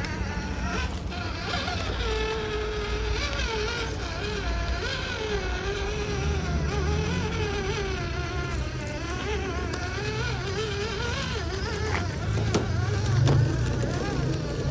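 Electric motor of a radio-controlled crawler truck whining, its pitch rising and falling as the throttle is worked, over a low rumble and a few short knocks.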